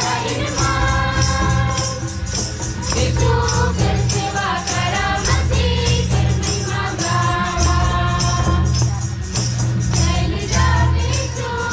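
A mixed group of men and women singing a hymn together in unison, accompanied by two-headed barrel drums and a fast, steady percussion beat of sharp strikes.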